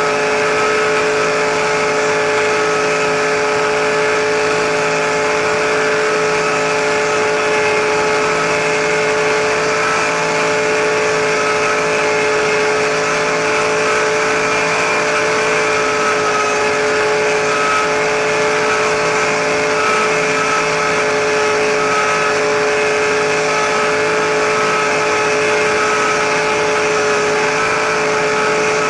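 RC helicopter's motor and rotors heard up close from a camera mounted on the machine in flight: a loud, steady whine at an unchanging pitch.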